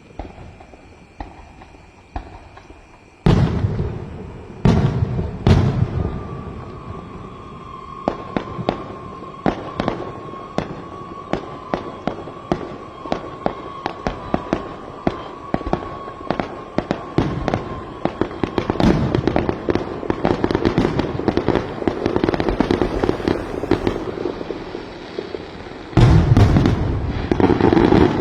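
Fireworks show: a few small pops, then three heavy booms and a long run of rapid crackling with a steady high tone under it for about twelve seconds. The show ends in a loud finale burst near the end.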